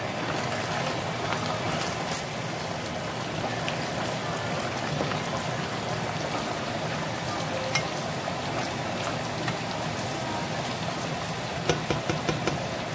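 Diced Spam frying in a saucepan of hot oil, a steady sizzle and bubbling. Near the end comes a few clicks of a spatula stirring the cubes against the pan.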